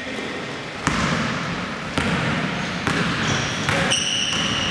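Basketball bouncing on a hardwood gym floor, about one bounce a second, echoing in the hall. Sneakers squeak on the floor in short high-pitched squeals during the second half.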